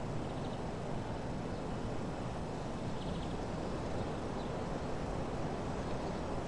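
Steady, even outdoor background noise, mostly low in pitch, with a few faint high chirps: about one at the start and another around three seconds in.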